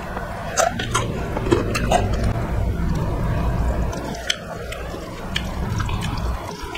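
Close-up wet eating sounds: chewing and lip-smacking of rice and curry gravy eaten by hand, with many short, sharp smacks and clicks.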